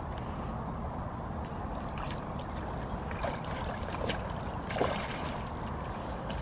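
Hooked carp splashing and thrashing at the surface as it is played in close to the bank, with a few louder splashes about three to five seconds in over a steady background hiss.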